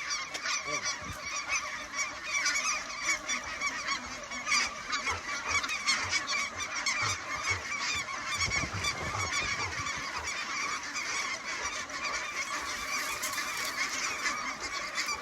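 A large flock of snow geese calling all at once: a dense, continuous chorus of high honks and yelps as the birds drop in to land.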